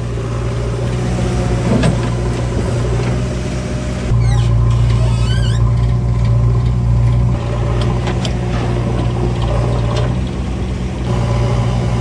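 JCB 3DX backhoe loader's diesel engine running steadily, swelling louder for a few seconds under load as the backhoe arm works, easing back, and swelling again near the end.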